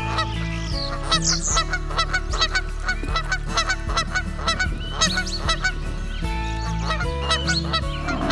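A flock of waterfowl honking repeatedly in quick, overlapping calls, over steady background music.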